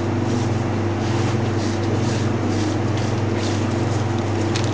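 A steady low mechanical hum, with soft swishes about twice a second from hands rubbing oil and seasoning over a raw pork loin on baking paper.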